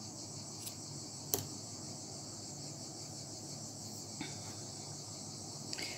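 A single sharp snip of scissors cutting cotton crochet yarn about a second and a half in, with a fainter click just before it, over a steady high background hiss with a fast faint pulse.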